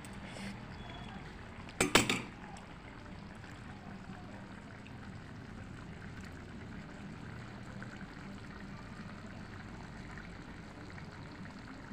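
Chicken liver adobo simmering in a pan, a steady bubbling hiss, with a brief clatter of several quick strikes about two seconds in.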